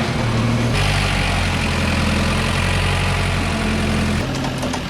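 A heavy engine running steadily. The sound changes abruptly twice, about a second in and near the end, and light clicking joins it near the end.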